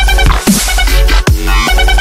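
Electronic dance music with a heavy bass and a steady beat.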